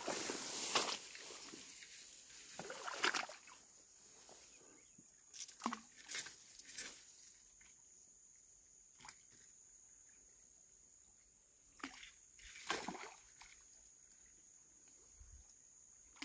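Tall wet grass and vegetation rustling and swishing as someone pushes through it on a flooded riverbank, with a few soft splashes of water. A steady high-pitched whine runs underneath.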